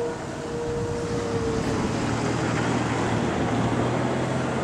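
Wind noise on the microphone with a distant outdoor tornado warning siren sounding a steady tone that fades out about a second and a half in. A low steady hum comes in soon after.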